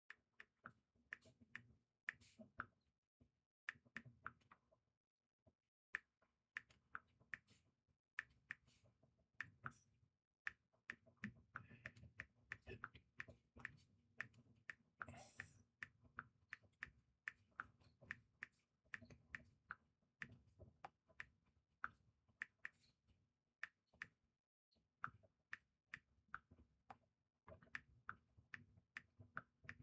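Light taps and clicks of typing on a phone, several a second at an uneven rate, with one short hiss about fifteen seconds in.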